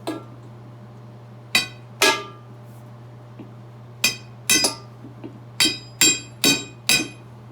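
Hammer blows on the steel split rim of a 1929 Packard wheel, each a sharp strike with a metallic ring, beating the rim into place in the tire. About ten strikes, a few spaced out early and then coming faster in the second half.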